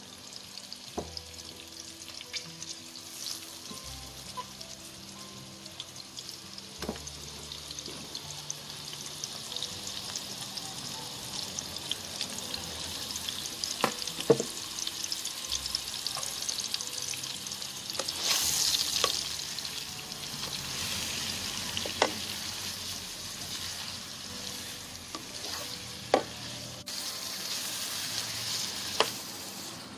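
Marinated prawns sizzling as they fry in hot oil in a non-stick pan. The sizzle grows louder through the second half, with several sharp knocks as they are stirred with a wooden spatula.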